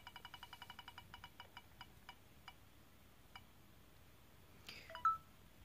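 An online spinning prize wheel's tick sound effect, played through computer speakers: rapid, evenly pitched clicks that slow down as the wheel loses speed and stop about three and a half seconds in. A short, louder sound follows about a second later.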